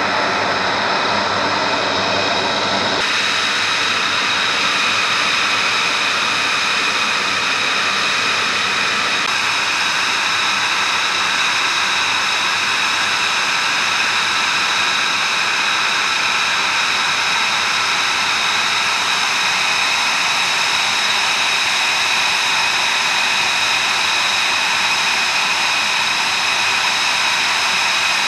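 F-35B's F135 jet engine running at idle on the ground: a steady, loud whine of several held high tones over a rush of noise.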